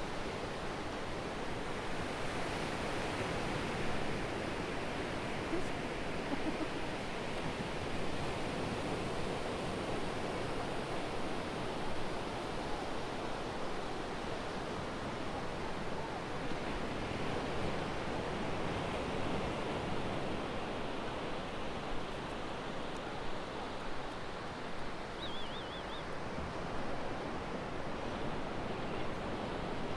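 Steady rush of sea waves, an even wash of noise with no breaks.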